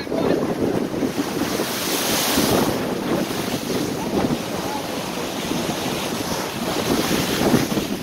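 Rough sea waves breaking and washing against a stone-block breakwater wall, with wind buffeting the microphone. One surge of foaming water hisses loudest about two seconds in.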